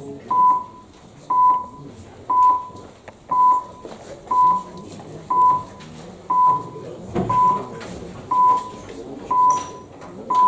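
Electronic voting system counting down an open vote: a short high beep about once a second, over a low murmur of the room, with a single thump about seven seconds in.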